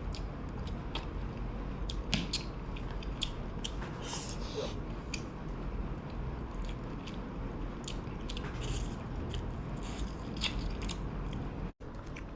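A person biting and chewing crisp-skinned Cantonese roast goose close to the microphone: a run of short, crisp crunches and clicks.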